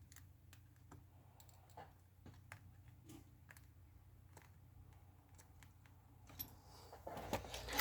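Faint, scattered clicks and taps of small repair tools against an iPhone XS's frame and screen, growing busier and louder near the end.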